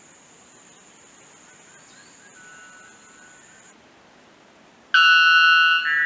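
White bellbird calling once, loud, about five seconds in: a lower ringing note for about a second that steps straight up into a higher one.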